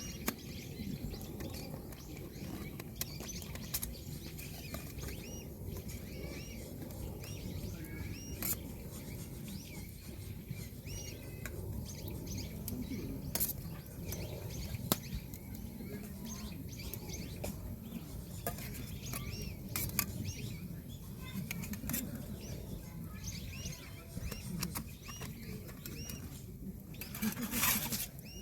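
Small birds chirping and twittering throughout, with a few scattered light clicks and knocks and a louder rustle near the end.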